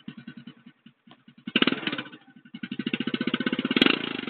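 Euro X125 motorcycle engine revving through its original exhaust pipe, with the pulsing exhaust note. There is a short throttle blip about a second and a half in, then a longer rev that peaks near the end before dropping back.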